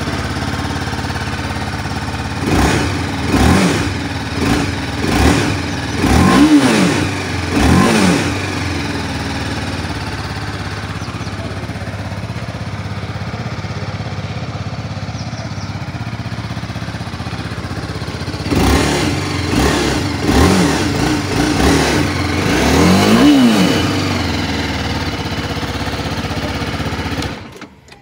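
TVS Apache RR 310's single-cylinder engine idling just after start-up, blipped up and down by the throttle in two runs of about half a dozen quick revs, with steady idle in between. It is not especially loud through the stock exhaust. The sound cuts off near the end.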